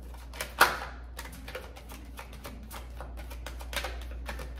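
A deck of tarot cards being shuffled by hand: a quick, irregular run of light card clicks and taps, with one louder snap about half a second in.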